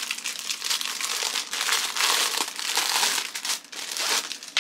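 Clear plastic packaging crinkling and rustling as it is handled and slid off a canvas brush pouch, with a dense run of crackles that is loudest around the middle.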